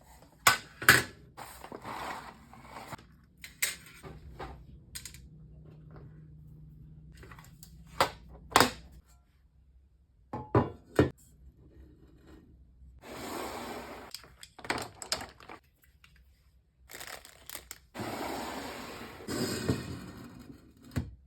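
Art supplies being handled in a box: a series of knocks and clicks as charcoal sticks and tools are picked up and set down, with stretches of rustling packaging.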